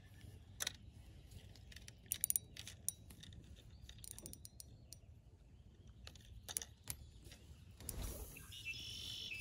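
Faint, scattered clicks and ticks from a spinning rod and reel being handled, including a quick run of three clicks about two seconds in.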